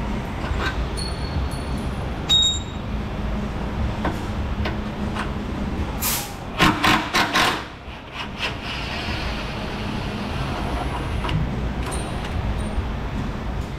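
Cordless 18-volt Ridgid impact wrench hammering in several short bursts, about six to seven and a half seconds in, as it loosens a bolt on the front cross member. A steady low hum runs underneath, with a few light clicks earlier on.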